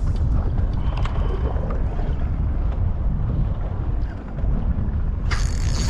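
Wind buffeting the microphone on a kayak, a steady low rumble with scattered small knocks. A louder, higher rushing sound starts suddenly near the end.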